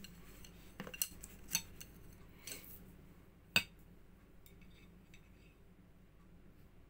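Cutlery clinking against dishes while eating: a few light clinks in the first few seconds, the sharpest about three and a half seconds in.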